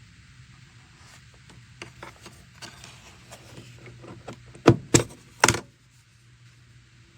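Scattered light clicks and taps, then three loud knocks in quick succession about two thirds of the way in, the last ringing on briefly, over a low steady hum.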